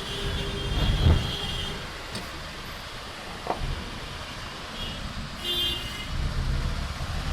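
Busy road traffic on an Indian street: engines running under vehicle horns that honk over and over, with one spell of horns at the start and another about five and a half seconds in.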